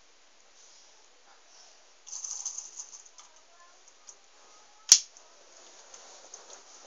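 Plastic Lego bricks rattling and clicking as Lego toy guns are handled: a burst of rattling about two seconds in, one sharp click about five seconds in, then a few light clicks.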